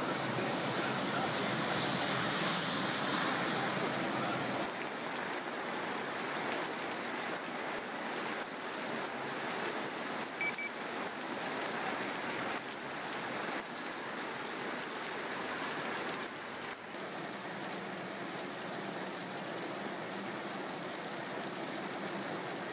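Heavy rain pouring onto a waterlogged street as a steady hiss of falling and splashing water. It is a little louder for the first four or five seconds.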